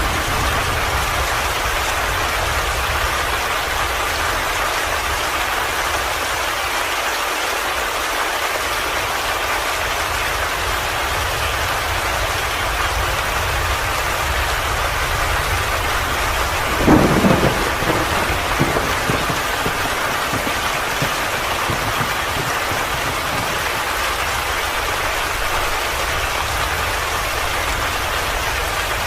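Steady heavy rainfall, an even hiss of drops on surfaces. About two-thirds of the way through, a brief low rumble rises above it and dies away over a couple of seconds.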